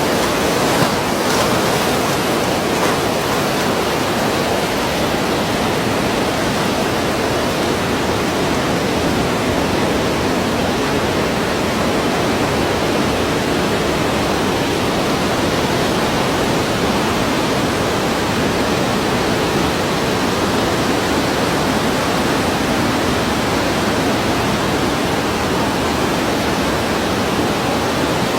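Sea waves breaking, heard as a continuous, even rush of surf with no distinct swells rising and falling.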